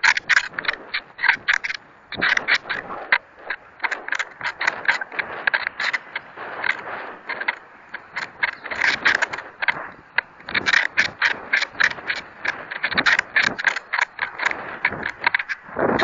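Irregular rapid clicking and rattling picked up by a model rocket's onboard camera as the rocket comes down, the camera and airframe knocking about in flight.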